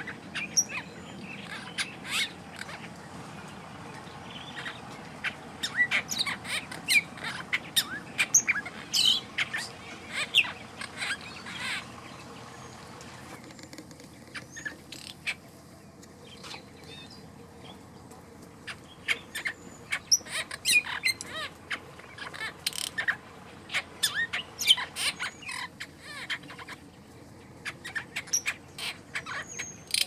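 Wild birds chirping and calling in many quick, sharp notes, thinning out for a few seconds midway before picking up again.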